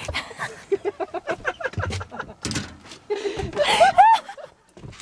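People chatting and laughing, with a louder burst of high laughter nearly four seconds in.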